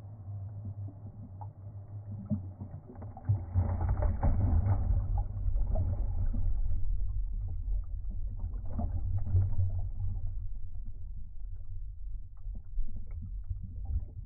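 Ocean wave water washing over and around the camera: a muffled low rumble full of small crackles and knocks. It swells sharply about three seconds in and eases after about ten seconds.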